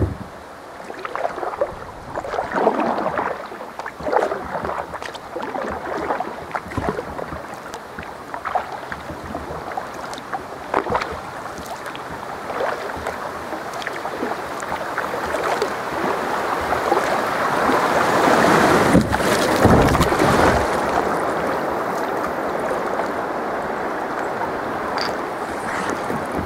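Kayak paddle strokes splashing into the water every second or two, then a steadier rushing of water against the hull that builds to its loudest about two-thirds of the way through.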